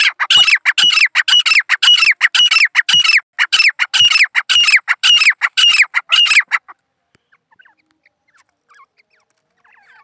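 Caged teetar (francolin) calling: a fast run of loud, evenly repeated notes, about two a second, each falling in pitch, that stops about two-thirds of the way through.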